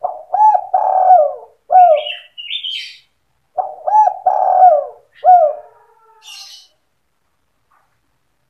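Spotted dove (tekukur) cooing its 'sandung kuk 2' lure song: two phrases of several rising-and-falling coos, the second starting about three and a half seconds in, each followed by a brief higher chirp.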